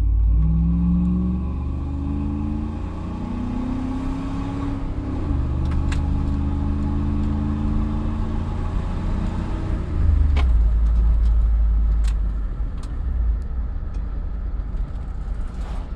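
Dodge 5.9-litre V8 with a Hooker Aero Chamber chambered exhaust, heard from inside the cabin of a 2000 Durango, accelerating hard from low speed. The exhaust note climbs and drops back at an automatic upshift about five seconds in. It climbs again, then falls to a lower, heavier rumble about ten seconds in.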